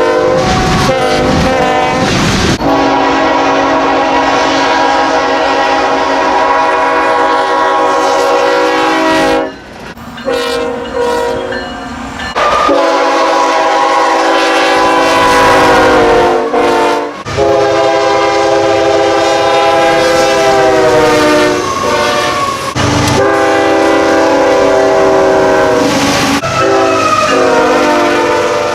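Nathan Airchime K5HL five-chime locomotive horn sounding a series of long, loud blasts, with brief breaks about ten seconds in and again around seventeen seconds. The chord sags in pitch a few times.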